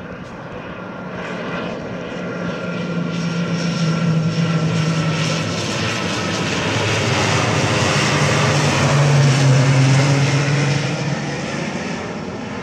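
Air Saint-Pierre ATR twin-turboprop airliner passing low overhead on landing approach. Its propeller hum and engine whine swell to a peak about nine seconds in, then fade, and the pitch drops as it goes by.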